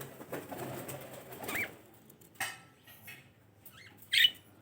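Pet budgerigars chirping: a few short, high chirps, the loudest about four seconds in.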